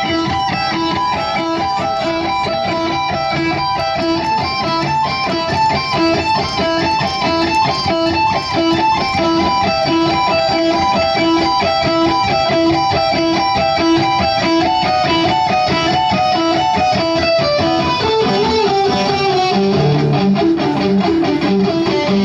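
Live heavy metal band playing: electric guitars repeat a riff over bass guitar, and the riff shifts to lower notes near the end.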